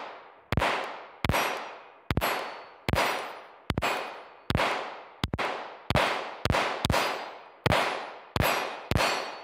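Glock pistol firing Federal aluminum-cased ammunition in slow, steady fire, about thirteen shots at roughly one every three-quarters of a second. Each shot is followed by a fading echo, and several by the ring of a struck steel plate.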